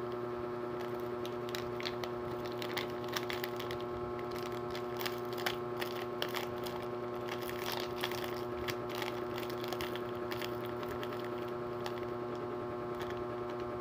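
Plastic coffee sachet crinkling while a spoon scrapes and taps the powder out of it into a mug: irregular small crackles and ticks over a steady hum.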